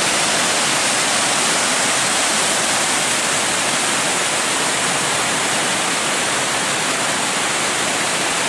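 Loud, steady rush of a waterfall: a reservoir's overflow cascading down over rocks.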